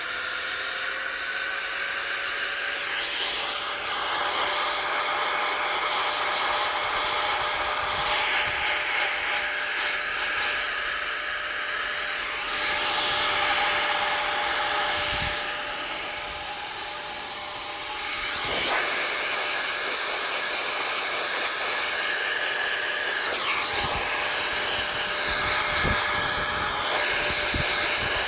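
Air blower hissing steadily as it blows dust out of a laptop's cooling fans, with a thin whine that rises a little over the first few seconds. The blast grows louder for a few seconds around the middle, dips, then carries on.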